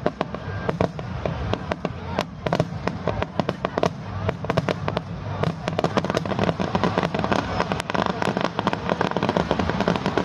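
Aerial fireworks heard at close range: a rapid, irregular barrage of bangs and crackles, growing a little denser in the second half.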